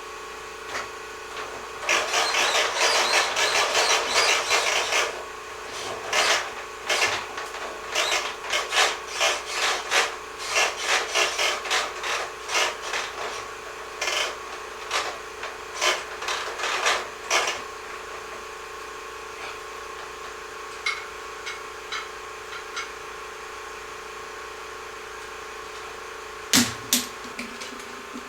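Rough scraping and rubbing handling noises: a dense stretch of a few seconds, then a run of short separate strokes, then only a few faint clicks, over a steady faint hum.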